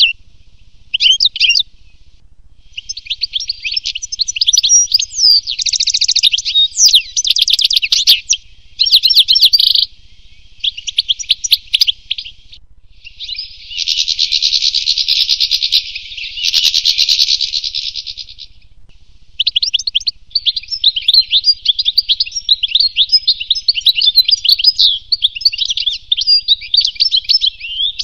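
European goldfinch singing: a rapid, high twittering song in phrases of a few seconds each, broken by short pauses.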